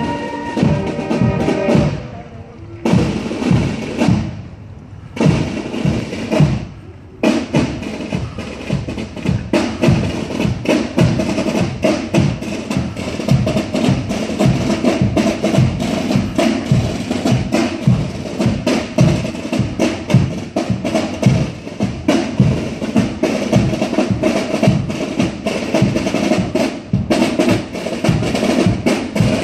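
Marching band's snare and bass drums beating a march rhythm. A pitched band tune ends about two seconds in, a few separate beats follow, and about seven seconds in the drums settle into steady, continuous drumming.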